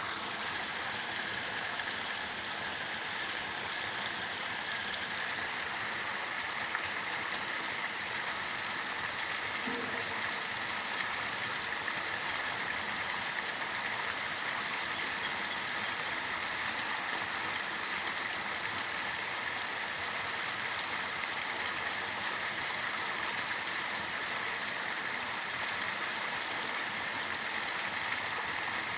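Steady rush of flowing canal water, an even hiss that does not change.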